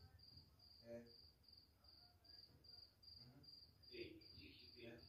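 A cricket chirping faintly, a high chirp repeated evenly about two to three times a second, with a few faint muffled sounds behind it.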